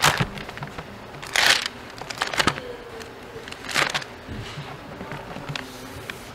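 Pages of a Bible being leafed through, a few brief paper rustles and swishes as the passage is looked up.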